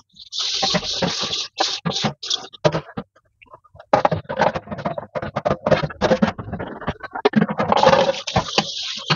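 Washing up at a kitchen sink: a large metal pan being scrubbed and rinsed, with quick scraping and clattering strokes and splashing water, a brief pause about three seconds in, then more scrubbing.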